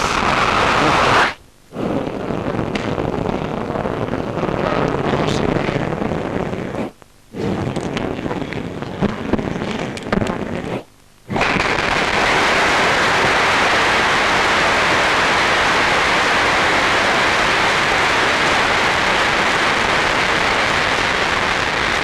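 Audience applauding, a dense, even clapping that cuts out briefly three times in the first half and then runs steadily.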